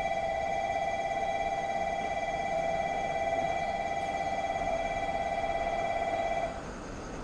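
Electronic train-approach warning bell on a Japanese railway platform, ringing in a steady rapid trill that signals an arriving train; it cuts off about six and a half seconds in.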